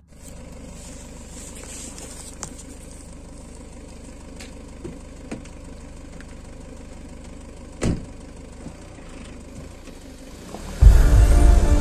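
Faint, steady low rumble of a Land Rover Freelander 2's engine approaching along a forest track, with a few light ticks, the clearest about eight seconds in. Loud background music cuts in about a second before the end.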